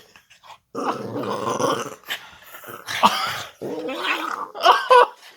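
Dog growling in rough play while play-biting, in several rough bursts, breaking into short higher-pitched cries near the end.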